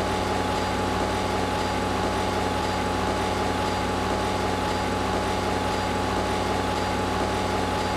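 Steady running hum of the fish pump that sucks fish up a big hose from the boat's hold, with a constant high whine over a low drone.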